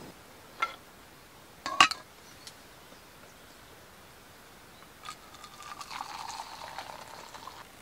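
Two sharp metal clinks in the first two seconds, the second much louder, then water poured from a camping kettle into a Snow Peak metal mug with a tea infuser in it, running for about two and a half seconds near the end.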